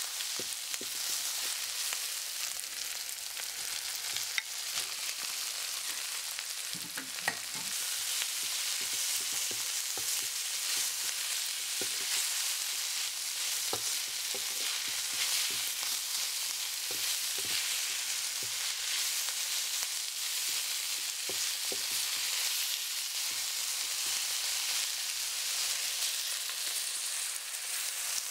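Shredded chicken, spring onions and red chilies sizzling steadily as they are stir-fried in a hot metal wok, with the spatula scraping and clicking against the pan many times.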